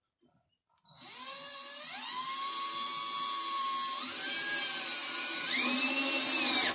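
Power drill driving a screw into wood: the motor whine starts about a second in, rises in pitch in steps as the drill speeds up, and cuts off suddenly near the end as the screw is driven home.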